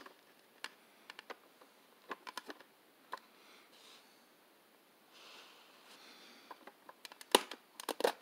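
Plastic toy dump truck being handled: scattered light clicks and taps of its plastic parts, a soft rustle about five seconds in, and a cluster of sharper clicks near the end as the red cover on the dump bed is pried open.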